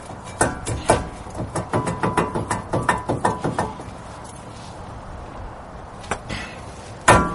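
Brake disc rotor on a 2004 Ford Expedition being knocked to work it loose from the wheel hub. A scatter of sharp knocks comes in the first few seconds, then a quick run of loud strikes with a metallic ring starts near the end.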